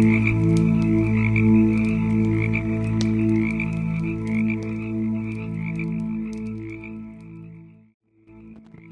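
Campfire crackling, with sharp little pops, over a louder steady low drone that swells and eases about once a second, and a chirring layer above it. The whole sound fades out near the end, drops to silence for a moment and then comes back.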